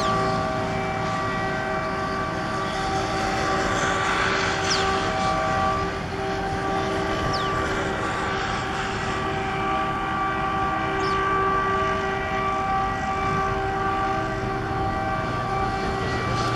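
YDM-4 metre-gauge diesel locomotive approaching under power. Its ALCO 251 engine gives a steady drone while its multi-tone horn sounds in long, sustained blasts with short breaks.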